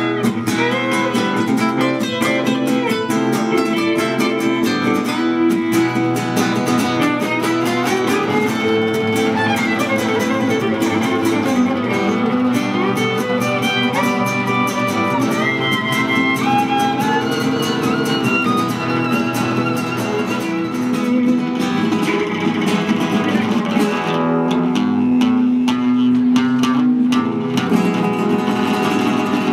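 Live acoustic trio of two guitars and a violin playing: fast strummed guitar chords under a violin melody, with one long held note about three quarters of the way through.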